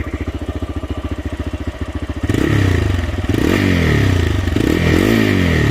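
TVS Raider 125's single-cylinder engine idling with even pulses, then revved up and down several times from about two seconds in. The bike has about 28,900 km on it, and the owner hears an annoying 'ting ting' noise in its sound.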